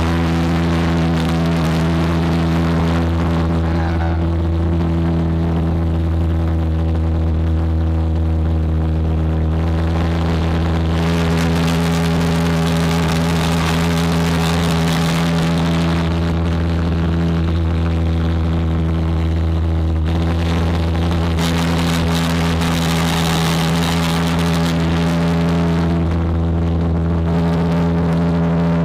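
Homemade jet engine running at a steady speed: a constant, even hum with a rushing, hissing noise over it that grows louder twice, around a third of the way in and again later on.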